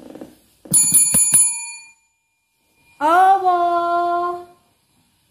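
A silver desk bell is struck three times in quick succession, its clear tone ringing on and fading. About two seconds later a long drawn-out call rises and then holds its pitch for about a second and a half.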